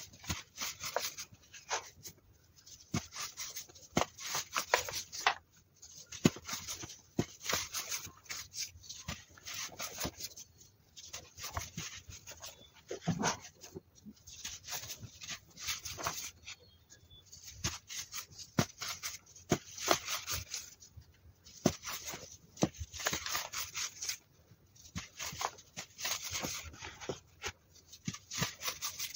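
Hands crushing and crumbling pressed baking-soda blocks into loose powder: crunching in irregular bursts, one or two a second, with sharp crackles.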